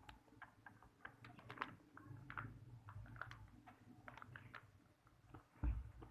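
Sticky slime being kneaded and stretched by hand as activator is worked in, making faint, irregular wet clicks and pops, with a soft low thump near the end.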